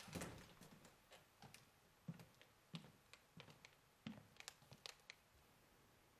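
Faint footsteps on a hard floor, about four steps a little over half a second apart, among light clicks and taps.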